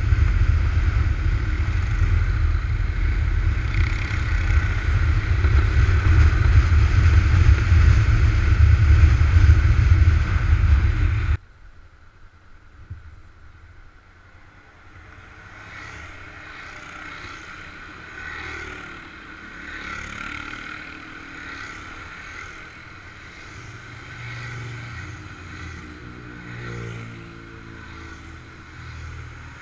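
Wind buffeting the microphone over the engine of a moving scooter, loud and steady; about eleven seconds in it cuts off suddenly to quieter engines of motorcycles and maxi-scooters riding past one after another, swelling as each one passes.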